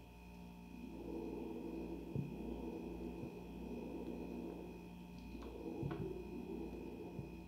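A steady hum with a faint high whine over a wavering background noise, with a few soft clicks about two seconds in and twice more near six seconds.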